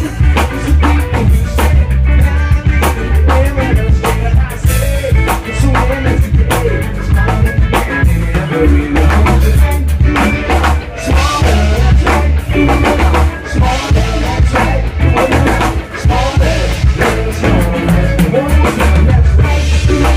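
Music with a drum kit and a strong bass line, the drums beating steadily throughout.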